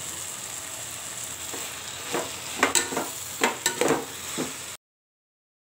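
Vegetables sizzling in oil in an aluminium pot, with a metal slotted spoon stirring and scraping against the pot from about a second and a half in as sambar powder is mixed through. The sound cuts out abruptly near the end.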